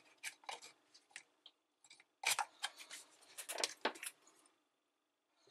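Irregular clicks and scrapes as a rubber sump seal is pushed down into a dishwasher's sump housing with a gloved hand and a thin tool. The loudest handling comes a little over two seconds in and again just before four seconds.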